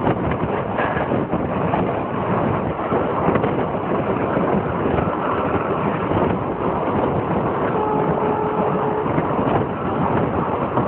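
Steady rumble and wind rush of a moving train. A faint pitched tone sounds for about a second near the end.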